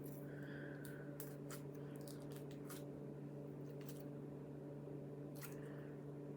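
Faint sticky clicks and squishes of translucent slime being handled, a few short pops scattered through, over a steady low hum.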